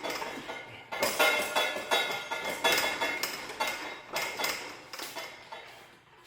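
Metal clanking and clinking: a quick run of knocks with a ringing tone, starting about a second in and fading out near the end, as metal parts and tools work against each other while the transmission is being removed.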